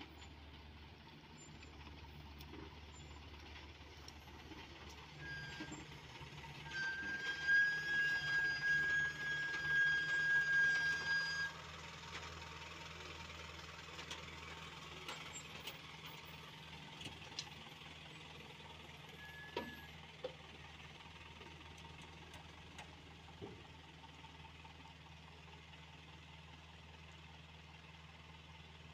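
Heavy-equipment diesel engines running with a steady low hum. For about five seconds, starting some seven seconds in, a loud high-pitched tone sounds over it, and a few faint knocks follow later.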